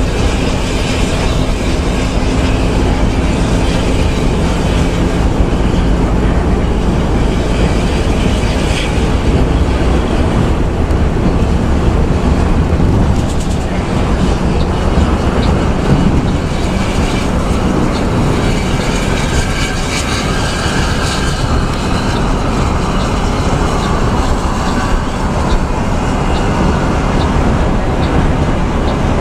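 Steady loud drone of a bus's diesel engine and tyres on the road, heard from inside the driver's cabin while cruising.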